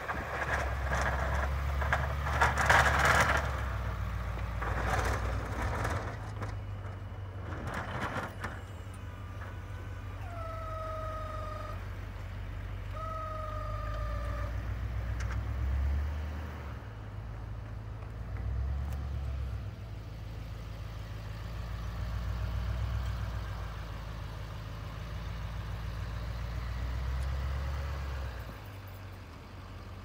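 Pickup truck with a front-mounted snowplow working, its engine a steady low rumble that rises and falls as it pushes snow. Loud scraping and clatter for the first eight seconds or so, then two long, slightly falling tones a couple of seconds apart.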